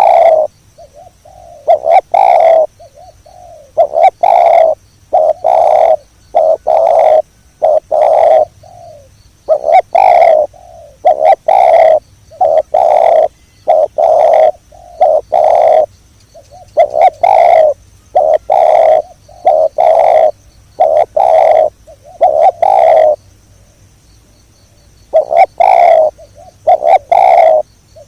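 Spotted dove (tekukur) cooing: loud, repeated coos in runs of several notes, with short breaks between runs.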